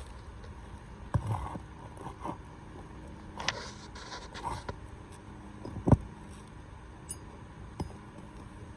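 A hammer striking a roof snake, a tool slid under the asphalt shingles to pull out roofing nails. Four sharp, irregularly spaced knocks, the loudest about six seconds in, with light scraping of the tool and shingles between them.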